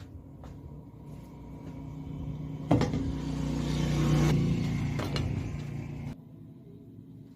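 A machine's motor running with a steady low hum that swells and then fades, with two sharp knocks along the way, cutting off suddenly about six seconds in.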